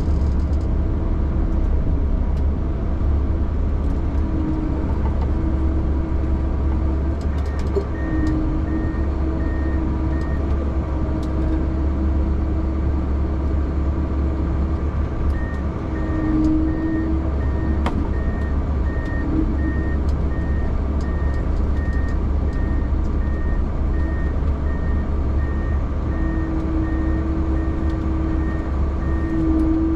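Heavy vehicle engine running steadily, heard from inside the cab as a low rumble. A reversing-style alarm beeps about twice a second for a couple of seconds, stops, then starts again halfway through and keeps going.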